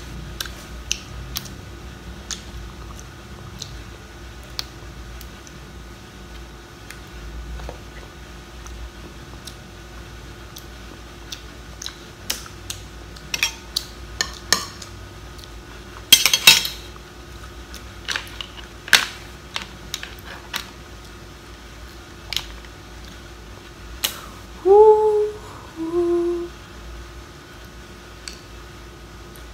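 Mud-crab claw shells being cracked and picked apart while eating: scattered sharp clicks and cracks, with a loud cluster of cracking about halfway through. Two short hummed sounds come from the eater near the end.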